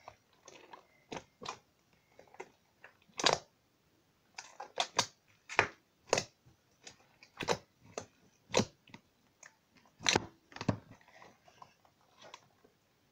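Hands kneading and pressing a large mass of thick slime in a plastic tub, giving irregular wet squishing pops and clicks with a few louder snaps.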